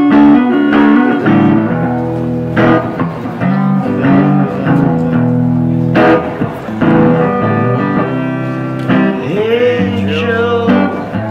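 Guitar playing a blues-flavoured instrumental, with chords and picked notes changing every half second or so, and a wavering, bending phrase near the end.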